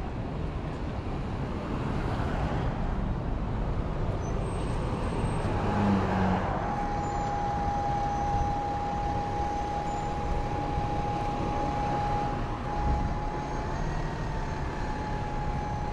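Road traffic going past: the steady rumble of cars, trucks and buses. About six and a half seconds in, a steady high whine starts and holds.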